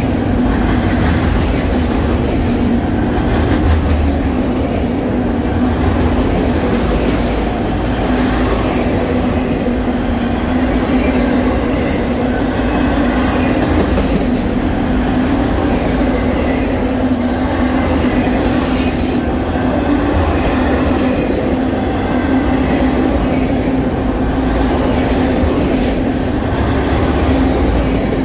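Autorack freight cars rolling past at close range: a loud, steady rumble of steel wheels on the rails with a constant low hum.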